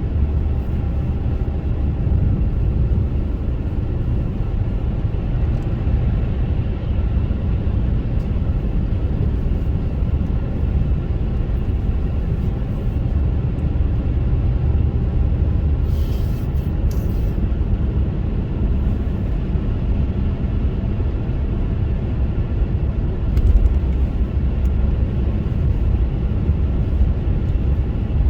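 Car driving through snow: a steady low rumble of engine and tyres, with a few brief hissing bursts, about halfway through and again later.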